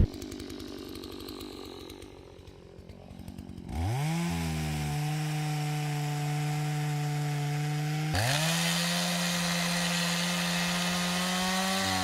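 Small two-stroke engine ticking over at low speed, then revved up about four seconds in and held at a steady high pitch; it drops for a moment about eight seconds in and revs straight back up.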